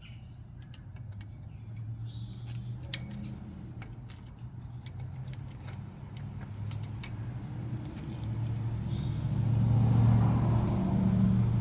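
A steady low motor-like hum that grows louder about eight seconds in, with scattered light clicks over it.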